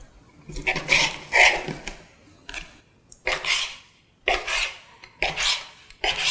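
Chef's knife cutting marinated mackerel fillets into small pieces on a cutting board: about six short slicing strokes, roughly one a second, each ending as the blade meets the board.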